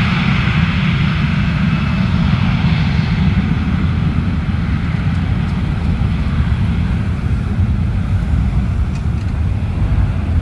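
Bombardier Global 6000 business jet's twin Rolls-Royce BR710 turbofans at takeoff power during its takeoff roll: a loud, steady jet roar. The high hiss is strongest in the first few seconds and eases off, while a heavy low rumble carries on.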